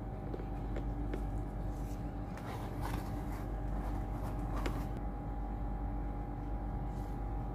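Steady low mechanical hum with a constant tone, with a few faint rustles and knocks about halfway through as the cat climbs into a cardboard box.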